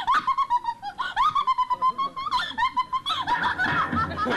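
A rapid run of high-pitched squeaky chirps, each rising and falling, like giggling. About three seconds in, a low steady music hum comes in under them.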